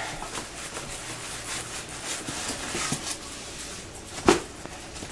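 Rustling and scraping of cardboard and packing as hands dig into a shipping box, then a single sharp knock about four seconds in as a styrofoam shipping box is lifted out.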